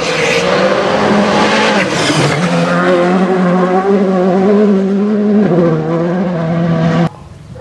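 Škoda Fabia Rally2 Evo's turbocharged 1.6-litre four-cylinder rally engine held at high revs as the car is driven flat out through gravel corners, in a few short segments whose pitch steps up and down. The sound cuts off suddenly near the end.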